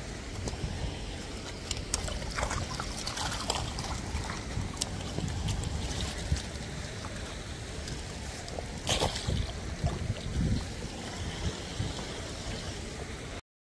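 Shallow stream water running over stones, with a steady low rumble and scattered clicks and rustles. It cuts off abruptly near the end.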